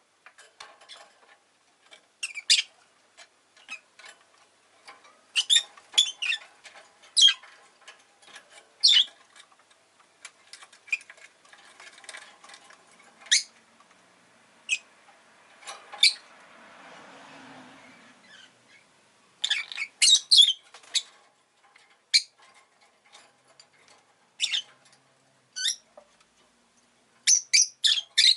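Rosy-faced lovebird giving short, sharp, high chirps and squawks in scattered clusters. A soft rushing noise swells and fades about halfway through.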